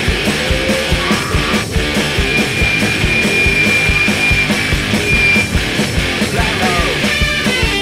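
Noise rock track playing: rapid, pounding drum strikes under a dense wall of band sound, with a single high note held for about two seconds in the middle and sliding pitches near the end.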